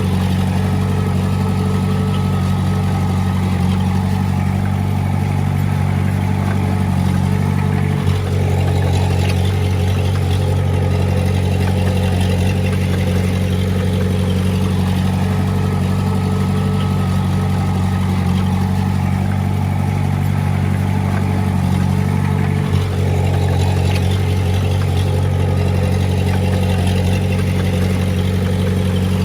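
Heavy-equipment diesel engine running steadily, with two brief knocks about eight seconds in and again near the end.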